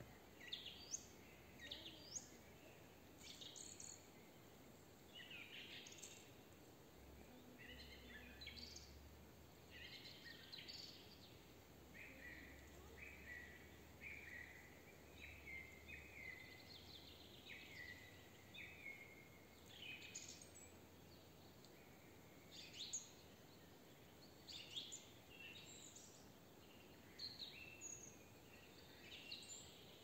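Songbirds singing faintly: a scatter of short high chirps and trills throughout, with a run of repeated short notes in the middle.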